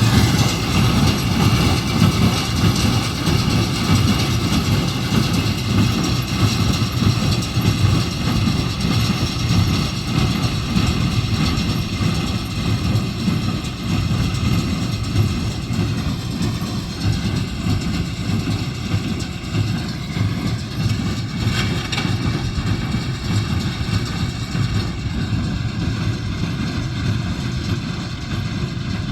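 Tractor engine running steadily while it pulls and drives a small square hay baler in the field.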